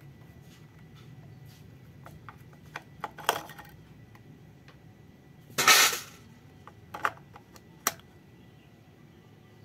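Hard plastic clicks and clatter from a toy train's body and battery compartment being handled while AA batteries are fitted. The loudest clatter comes about halfway through, followed by a few sharp single clicks.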